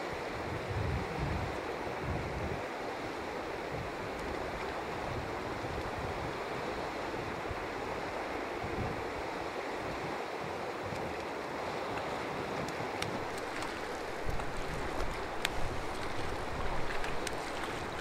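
Steady rush of a clear mountain river flowing, with uneven low wind rumble on the microphone.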